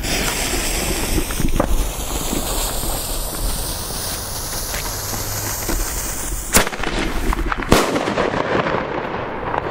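A hissing fuse burns for several seconds, then two sharp, very loud bangs from Titanium Salute Color Thunder King salute firecrackers (5.4 g each) come about a second apart, around two-thirds of the way in.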